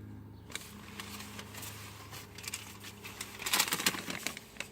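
Paper receipts being handled: soft rustling and crinkling with scattered clicks, and a short burst of crackling about three and a half seconds in.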